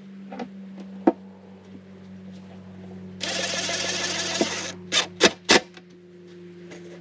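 A cordless drill-driver runs in one burst of about a second and a half, about three seconds in, followed by three sharp knocks. A steady low hum runs underneath.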